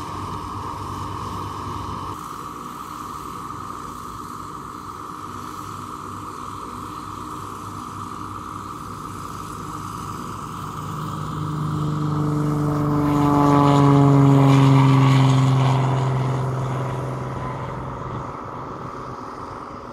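A propeller-driven light aircraft passing by. Its engine note grows louder, peaks about two thirds of the way through and fades while its pitch falls, over a steady background hum.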